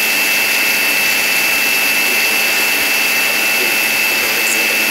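Sujata mixer grinder running at full speed, its motor and blades grinding coriander for home-made masala powder in the steel grinder jar: a steady high whine over a rushing noise.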